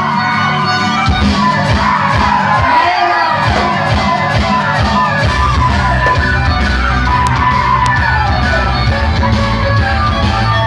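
Loud rock music played over a mobile disco sound system, heavy in the bass, with voices yelling and singing along over it.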